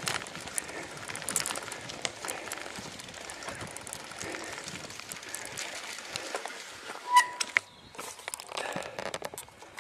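Bicycle rolling over a rough grassy towpath: rustling tyre noise with frequent rattling clicks. About seven seconds in comes a single short clear note, the loudest sound, and after it the rolling noise goes quieter.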